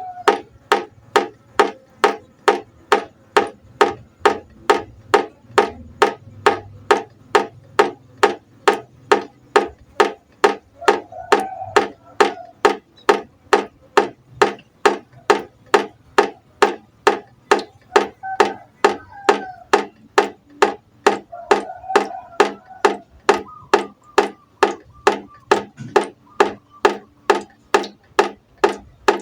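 Water drops falling into a pot, each landing as a sharp plink at a steady rhythm of about two a second.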